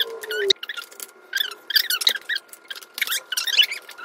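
High-pitched, squeaky chattering in quick short bursts: children's voices sped up to a chipmunk pitch in fast-forwarded footage. A single click comes about half a second in.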